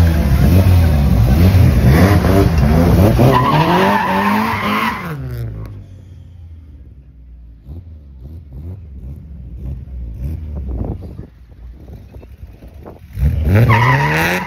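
Drag car's engine revving hard, its pitch climbing steadily for about five seconds with tyres squealing, then cutting off suddenly. After a quieter stretch it revs up again briefly near the end.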